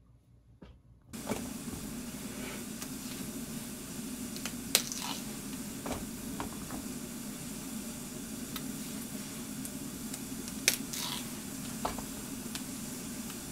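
A steady hiss of kitchen noise starts suddenly about a second in, with a few sharp clicks as snap peas are picked up and set down on a plastic cutting board.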